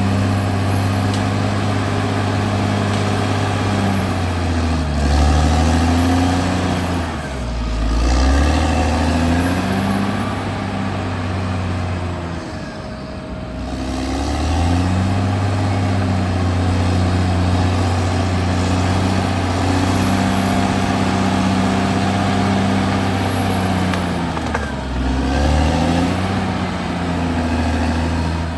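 Caterpillar D6R XL bulldozer's diesel engine running hard, its pitch sagging under load and recovering twice, about five to eight seconds in and again near the end. It eases off briefly in the middle.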